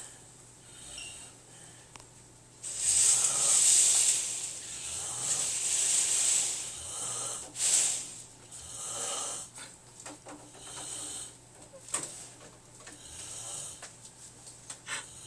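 A man snoring: a string of irregular, hissy snoring breaths, loudest about three seconds in.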